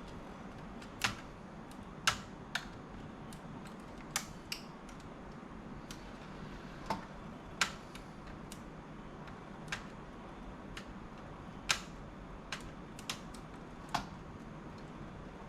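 Scattered sharp clicks and taps of fingers and a small tool on the plastic and metal parts of an opened laptop, about one a second and irregular, as small connectors are worked loose.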